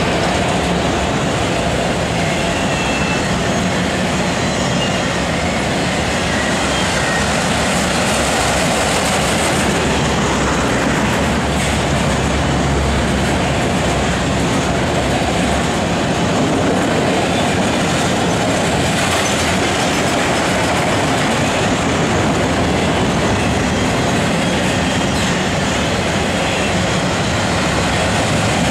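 Autorack freight cars rolling past, a steady loud rumble and rattle of steel wheels on rail.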